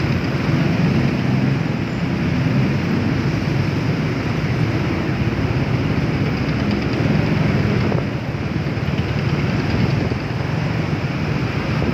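Motorcycle riding along: a steady low engine drone under an even rush of noise, with a brief dip about eight seconds in.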